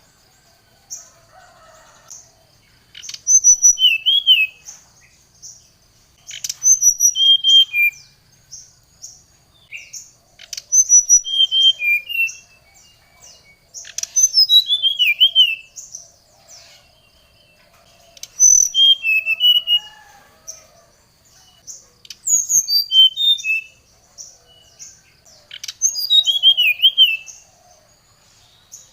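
Brown-chested jungle flycatcher (sikatan rimba dada coklat, SRDC) singing a lively, agitated song: about seven bursts of rapid whistled and trilled notes, one every three to four seconds, over a faint steady high tone. This is the kind of song kept-bird trainers play as a lure to provoke a rival into answering.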